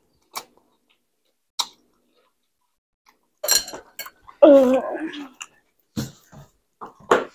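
Eating and spicy-heat reaction mouth sounds. Two short crisp clicks come in the first two seconds. About three and a half seconds in there is a sharp hissing breath, followed by a loud, wavering, pained vocal cry, then short gasping breaths near the end, as the heat of raw green chili peppers hits.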